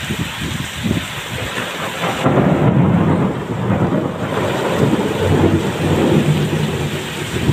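Heavy rain pouring steadily, with a low rumble that swells about two seconds in and holds.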